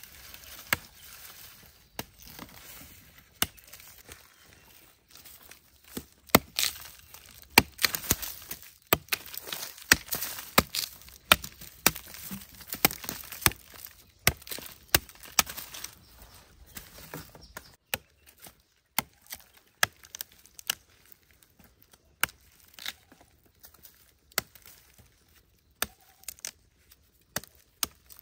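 Chopping cassava with a blade: a long run of sharp, irregular strokes, thickest through the middle and sparser towards the end.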